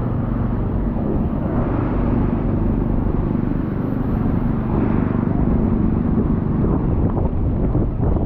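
Steady low rumble of wind buffeting a bike-mounted camera's microphone, mixed with road noise from riding a bicycle over wet pavement in typhoon rain.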